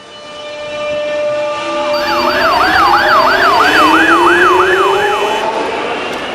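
Emergency vehicle siren in a fast yelp, its pitch sweeping up and down about three times a second over traffic noise. It swells in loudness and then fades.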